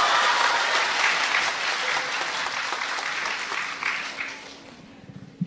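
Live theatre audience applauding, the clapping gradually dying away near the end.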